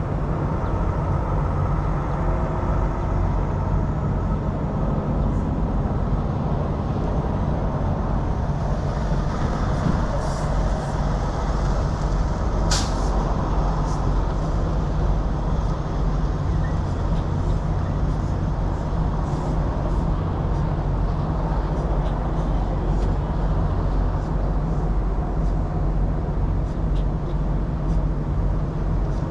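Diesel semi-truck engine idling steadily. There is one brief sharp hiss of released air about 13 seconds in.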